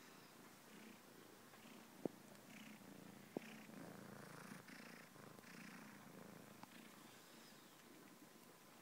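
A young kitten purring faintly and steadily while chewing on a fleece dressing gown, with short soft rasps of teeth and mouth on the fabric. Two sharp clicks stand out, about two seconds in and again a second and a half later.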